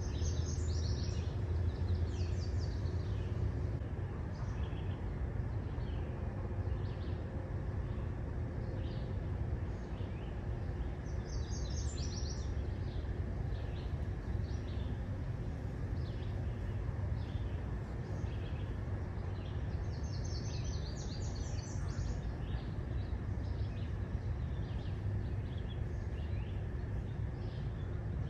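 Steady low rumble of a car rolling slowly along a paved road, with birds chirping throughout; three times a bird breaks into a louder, rapid run of high calls.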